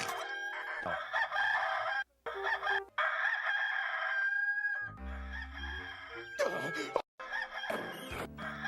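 Rooster crowing, from the Hollywood Edge 'Bird Rooster 2 Crow' stock sound effect. It comes several times in short pieces cut one after another, with brief silences between some of them. Some crows end on a long, held high note, with music underneath in places.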